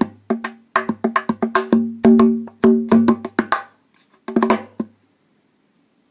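Cajon played with bare hands: a fast run of sharp slaps mixed with deeper, ringing bass strokes, then a short gap and a final quick flurry, after which the playing stops about five seconds in.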